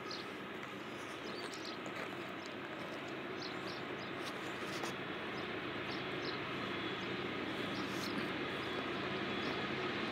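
Diesel locomotives of an approaching Norfolk Southern freight train heard from a distance: a steady low engine drone that grows slowly louder.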